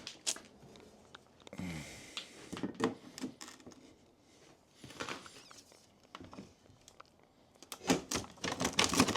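Hand tools and small metal hardware being handled during a repair: scattered clicks and taps with quiet gaps, then a quick run of clicks near the end.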